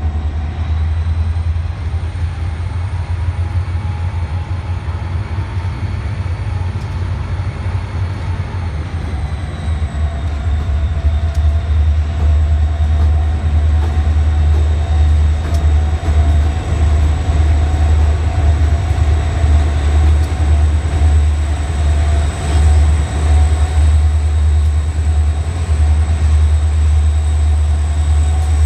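CSX diesel-electric freight locomotives rumbling past, with a steady engine whine that drops slightly in pitch about nine seconds in. The train's freight cars follow behind them.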